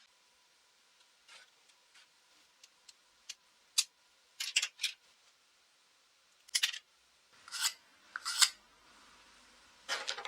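Handling noises from freshly cut wood pieces: a series of short scrapes and rubs with a few light taps, irregularly spaced, the loudest rubs in the middle and near the end.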